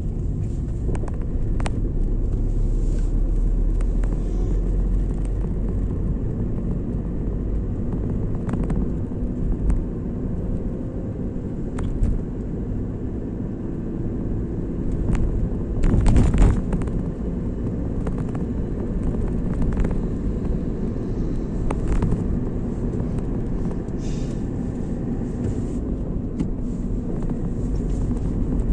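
Steady road and engine rumble inside the cabin of a moving Hyundai i20, with a few short clicks and one louder thump about sixteen seconds in.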